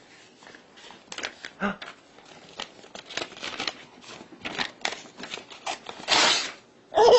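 Sheet of paper being handled and torn: crinkling and crackling throughout, with one longer rip about six seconds in. A baby starts laughing right at the end.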